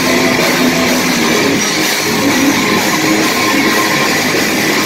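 Live rock band playing loud: two electric guitars over bass guitar and drums.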